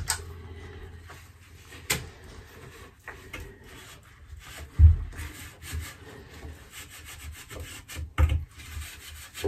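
Faint rubbing and scraping of a wire pipe cleaner worked inside the plastic air outlet tube of a Xiaomi antibacterial humidifier, with a light click about two seconds in and low knocks of the housing about five and eight seconds in.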